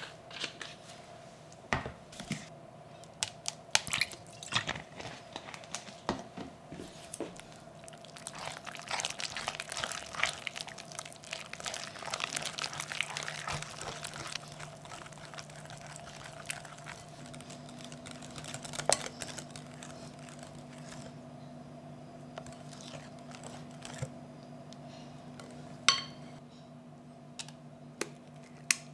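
Wire whisk beating cream cheese and egg in a glass bowl: a wet, scraping swish with clinks of the wires against the glass, busiest in the middle, then only a few sharp clicks over a faint steady hum.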